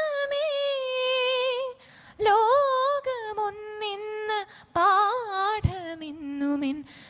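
Female voice singing a Malayalam prayer song, drawing out long wavering notes between lines of text, with short breaks about two and four and a half seconds in. From about six seconds in the melody settles on a lower note.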